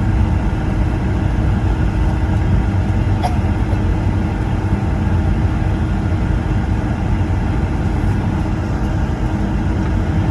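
Steady low rumble of a Boeing 757-200's engines and rolling noise heard inside the cabin as the airliner moves on the ground after landing, with one small click about three seconds in.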